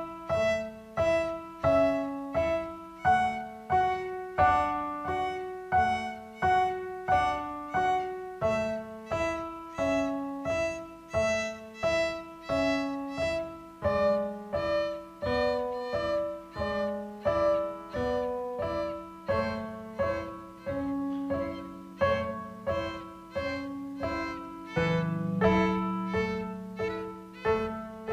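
A child playing a simple melody on the violin, with keyboard accompaniment in a steady beat.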